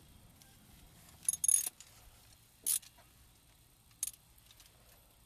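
Short metallic clinks and rattles of hand tools and steering-wheel parts being handled during reassembly: a brief cluster about a second and a half in, then single clinks near three and four seconds.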